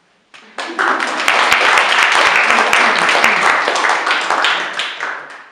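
Loud applause from many people clapping together. It starts about half a second in and dies away near the end.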